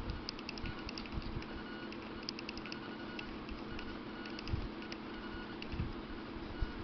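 Mechanical pencil drawing on paper: short clusters of light scratchy clicks as the lead strokes and taps on the sheet, with a few soft thumps of the hand on the paper, over a steady low hum.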